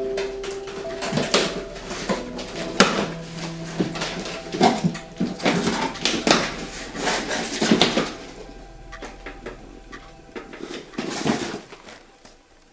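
Cardboard box being torn open and handled: irregular bursts of scraping, rustling and knocking for about eight seconds, then fainter, with one more burst near the end.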